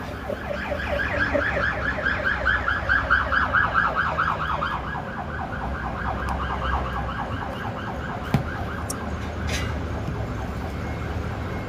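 Ambulance siren in a fast warbling yelp, about four warbles a second, loudest in the first few seconds and fading after about five seconds. A single sharp click comes about eight seconds in.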